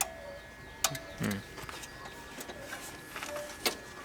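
Two sharp clicks, one about a second in and one near the end, with a short low sound just after the first. There is no cranking: the GAZelle's starter is not turning over, because current is not reaching it.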